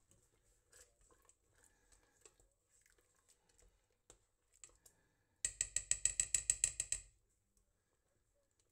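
Plastic spoon stirring thick tomato salsa in a stainless steel pot: soft scrapes and light clicks. About halfway through comes a loud, rapid rattle of about a dozen sharp clicks lasting about a second and a half, the loudest sound here.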